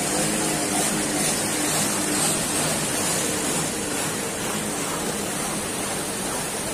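Floodwater rushing and splashing as a small car, a Maruti Suzuki Alto, wades through it, its tyres churning up a wake; a steady water noise, with a faint engine hum beneath it that fades out about halfway.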